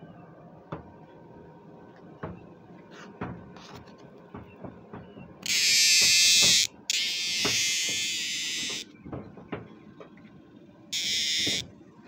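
Male superb dog-day cicada (Neotibicen superbus) buzzing loudly in three harsh bursts: two back to back about halfway through, the second longer, and a short one near the end. Faint ticks and taps of handling fall between them.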